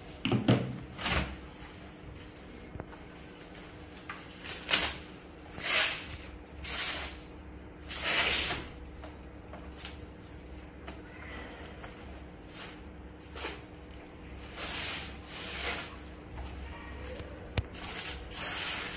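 Newspaper gift wrapping being torn and crumpled off a present, in a string of separate rustling rips.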